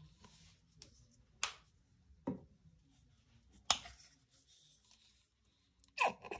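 Handling of a clear plastic paint cup and acrylic paint squeeze bottles: a few separate short clicks and taps, about four in all, with quiet between them.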